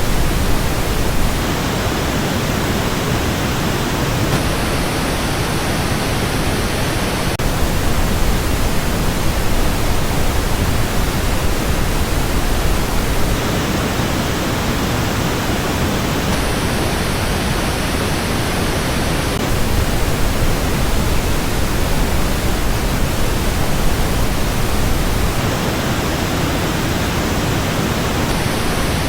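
Pink noise test signal, switching every few seconds between a plain version and two versions coloured by the Sennheiser HD 600 and HD 560S headphones, the treble changing audibly with each switch.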